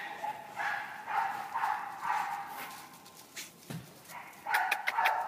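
A dog whining: a long, high, steady whine that swells in repeated pulses, dies away about three seconds in and comes back louder near the end, with a few sharp clicks.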